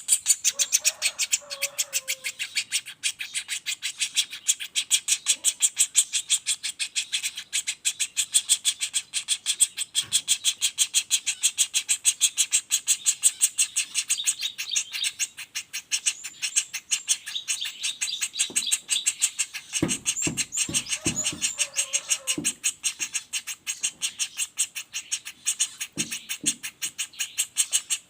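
Young common flameback woodpecker (pelatuk bawang) calling in a fast, unbroken roll, several sharp calls a second. Some faint low thumps come in about two-thirds of the way through.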